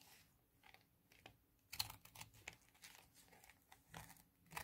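Scissors trimming the edge of a folded paper page: faint, scattered snips and clicks, the clearest about two seconds in and near the end.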